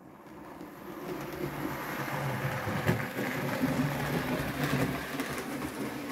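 Hornby OO gauge Cock of the North model locomotive running along the layout track: the small electric motor whirring and the wheels rattling on the rails, with a few sharp clicks. The sound comes up from silence over the first second or so and then holds steady.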